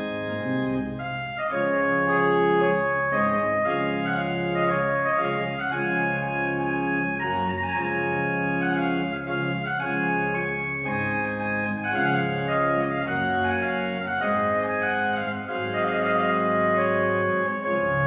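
Church organ playing music in full, held chords that change every half second to a second, growing a little louder about a second and a half in.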